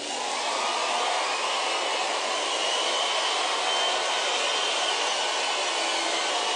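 Large audience applauding and cheering in a dense, steady wash of clapping.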